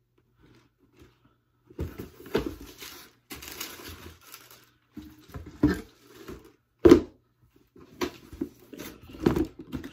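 A cardboard shoe box and its paper being handled: scattered knocks and clicks with a patch of paper rustling and crinkling, and one sharp knock, the loudest, about seven seconds in.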